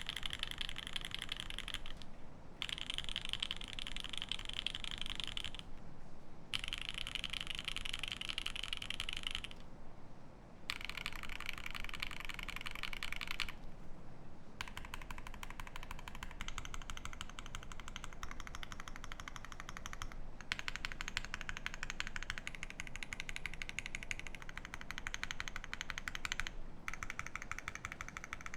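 Fast, continuous typing on a Keycult No.1/60 mechanical keyboard with a brass plate, lubed C3 Banana Split tactile switches and GMK keycaps. The keystrokes come in a dense stream broken by several short pauses.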